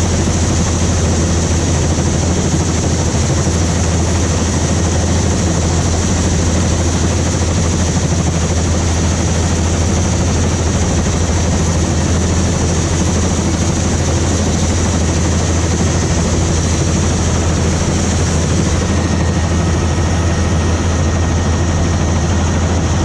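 Helicopter in flight heard from its open, doors-off cabin: a loud, steady low drone of the rotor and engine under a dense rush of wind noise.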